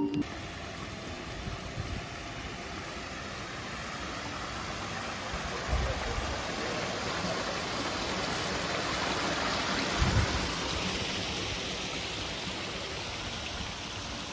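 Rushing, splashing water noise that swells in loudness toward the middle and eases off again, with a couple of short low thumps.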